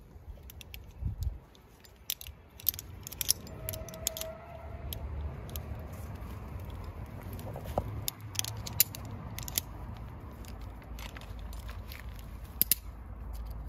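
Metal climbing hardware clicking and clinking as carabiners and a rope device are clipped and handled on a tree sling, in irregular sharp clicks, with rope and glove handling noise underneath.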